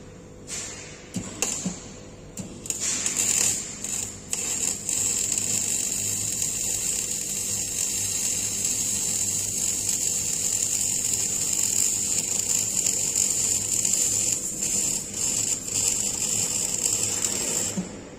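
MIG welding arc on a steel pipe fitting: a few short sputtering starts, then a steady crackling buzz for about thirteen seconds that cuts off sharply near the end.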